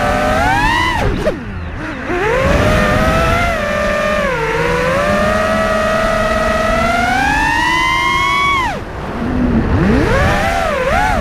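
FPV freestyle quadcopter's brushless motors whining, their pitch rising and falling with the throttle. Twice, about a second in and again near nine seconds, the throttle is chopped: the whine drops in pitch and goes quieter, then climbs back as the throttle is punched again.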